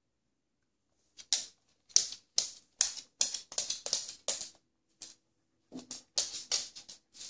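A border collie's claws clicking and skittering on a laminate floor as it scrambles about in play: sharp, irregular taps, two or three a second, starting about a second in, with a short lull near the five-second mark.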